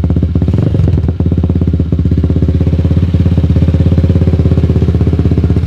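Motorstar Z200 motorcycle engine idling steadily through an Akrapovic-style exhaust with the silencer removed, with a loud, even exhaust pulse.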